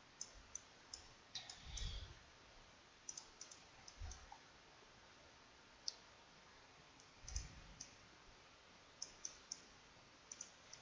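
Faint computer mouse clicks, scattered singly and in quick little runs a second or so apart, as spline vertices are selected and edited in 3ds Max, with a few soft low thumps among them.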